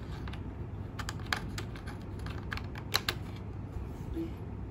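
Scattered light clicks and taps as a USB cable and plug are handled and pushed into a laptop's USB port, with a sharper click about three seconds in.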